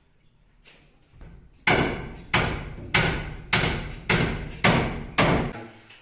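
Hand hammer striking overhead on timber ceiling brandering battens, nailing them up: seven sharp blows at a steady pace of about two a second, starting about a second and a half in, each ringing briefly.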